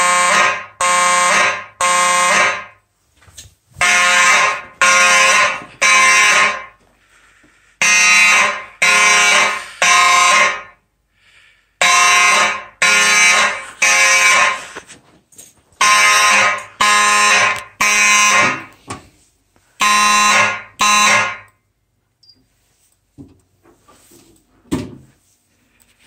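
Simplex fire alarm horns sounding together in the temporal-three evacuation pattern: three loud blasts, a pause, then three more, repeating. About 21 seconds in they stop partway through a group, as the alarm is silenced, and a few faint clicks follow.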